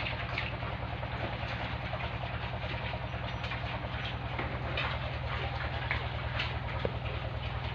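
Steady machine hum under a constant hiss, with scattered light clicks.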